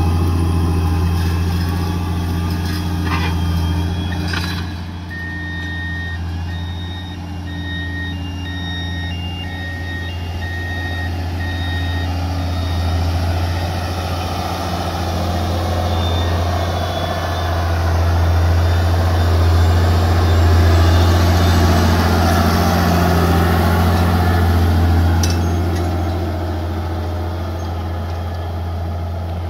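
Farm tractor's diesel engine running steadily under load while pulling a subsoiler through the soil. From about five to twelve seconds in, a run of short electronic beeps sounds, about one and a half a second.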